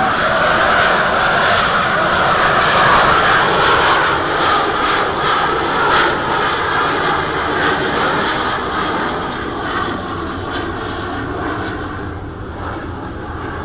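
Jet engine noise from a jet aircraft flying past, a loud steady rushing sound that fades gradually over the last several seconds as it moves away.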